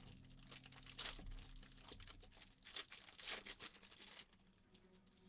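Faint crinkling and tearing of a cellophane wrapper being pulled off a stack of trading cards, in irregular crackles that die away about four seconds in.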